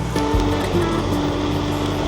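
Background music with held notes and a steady bass line, over wind and road noise from riding.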